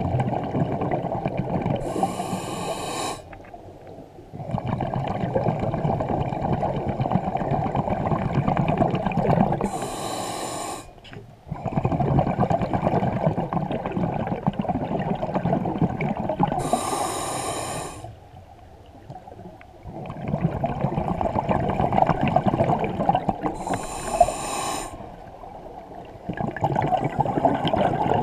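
Scuba diver breathing through a regulator underwater: a short high hiss on each inhale, then a long burst of bubbling exhaust on each exhale, repeating about every seven seconds, four breaths in all.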